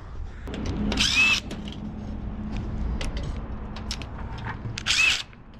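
Scrap metal being handled over a steady low hum, with scattered light clicks and two short harsh scrapes with a brief squeal, about a second in and again near the end.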